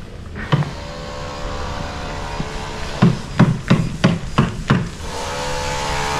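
Construction hammering: a single knock, then six sharp hammer blows at about three a second, with a steady pitched hum sounding before and after the blows.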